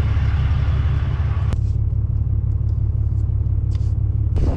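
Ram pickup truck's engine idling with a steady low rumble; a sharp knock about a second and a half in, after which the higher hiss drops away.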